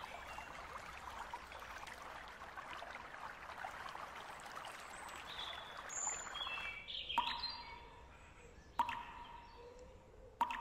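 A stream running and babbling, with small birds chirping and whistling over it; about seven seconds in, the water fades and three sharp clicks follow, about a second and a half apart, each with a short ringing tone after it.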